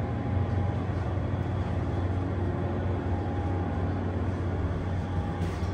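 Hydraulic elevator running, with a steady low hum from its pump motor.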